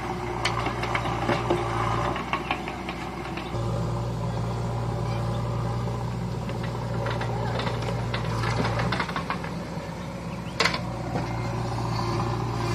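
Diesel engines of a JCB backhoe loader and a Sonalika tractor running steadily at idle, with a low hum that drops out briefly twice. Scattered clatters and knocks come from soil and stones being loaded into the tractor's trolley, with one sharp clank about ten and a half seconds in.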